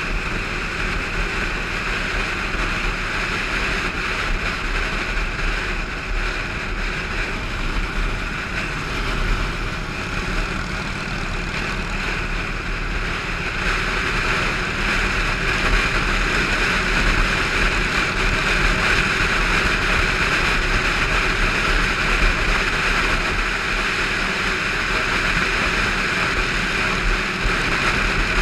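Riding a motorcycle at steady highway speed: wind rushes over the camera microphone over the bike's engine running evenly. The noise grows slightly louder about halfway through.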